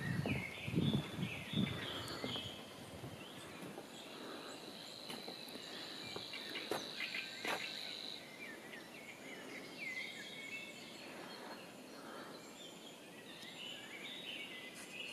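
Outdoor ambience with small birds chirping on and off, and a steady high-pitched insect buzz lasting a few seconds in the middle. A few low thumps come in the first two seconds.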